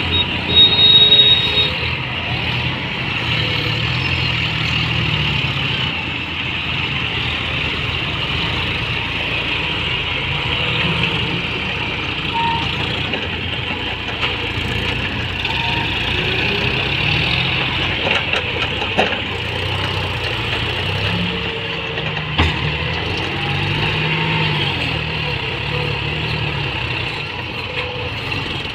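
Diesel tractor engines running steadily under load as front loaders dig and lift sand, with a few brief knocks about two-thirds of the way through.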